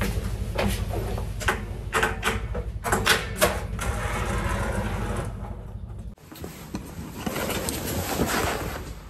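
Steady low rumble of the ferry's engines heard inside the cabin, with irregular knocks and footsteps. About six seconds in the rumble cuts off and a rustling hiss takes over.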